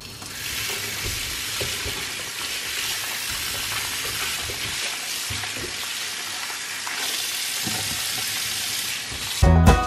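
Kitchen tap running in a steady stream onto fruit in a bowl, with a few faint knocks as the fruit is handled. Music cuts in near the end.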